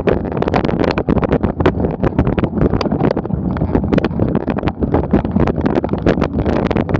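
Wind buffeting the microphone of a camera riding on a mountain bike going fast down a dirt forest trail, over a steady rumble of tyres on the ground. Frequent sharp rattles and knocks come from the bike jolting over bumps.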